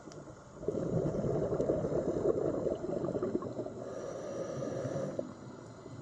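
Scuba diver's exhaled bubbles streaming from the regulator, a low bubbling rush that starts about half a second in and stops about a second before the end.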